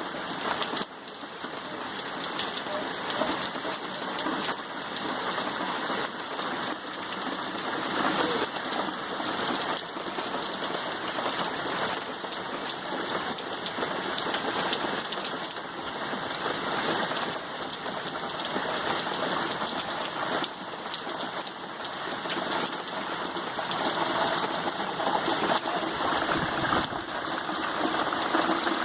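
Rain from Tropical Storm Irma pouring down steadily, a dense, even hiss.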